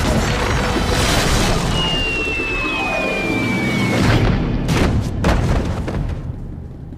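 Cartoon crash sound effects: a long, loud rumbling crash with a thin falling whistle through the middle and two sharp bangs about five seconds in, dying away near the end.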